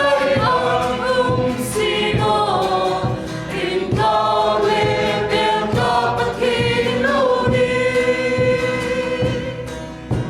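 A Christian worship song sung by a group of voices in chorus over a band with a steady drum beat, fading away near the end.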